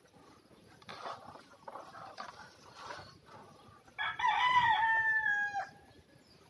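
A rooster crowing once, a loud call of under two seconds that starts about four seconds in and drops slightly in pitch as it ends. Faint rustling comes before it.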